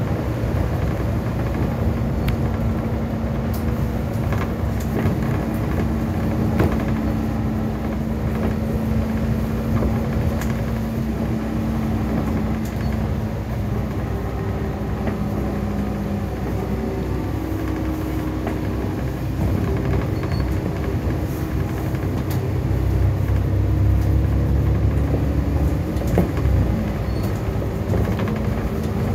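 Double-decker bus in motion, heard from the upper deck: a steady engine drone over a deep road rumble, with small rattles and clicks. The drone's pitch shifts about halfway through and comes back near the end.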